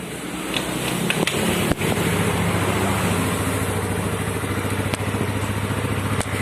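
Yamaha Mio Sporty scooter's small single-cylinder four-stroke engine running, with a few light clicks in the first two seconds, then idling steadily. The idle no longer rises and falls or coughs now that the carburettor's vacuum needle has been shimmed up with a small washer.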